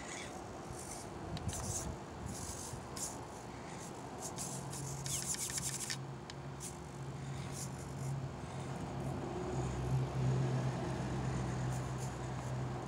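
Axial AX24 mini RC rock crawler's brushed electric motor and gears humming under load as it climbs over rocks, the hum setting in partway through and growing louder. Through the first half come scattered clicks and scraping as the tires and chassis rub and knock against the stone.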